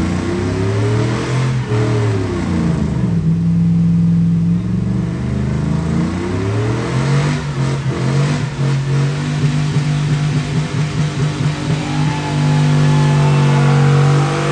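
Pickup truck's engine revving hard during a burnout, its pitch rising and falling a couple of times, then held at high revs near the end while the rear tyres spin and smoke.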